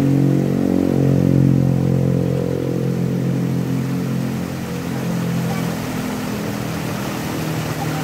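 Water rushing steadily over a small bamboo weir, with a running engine's steady hum on top that weakens about halfway through.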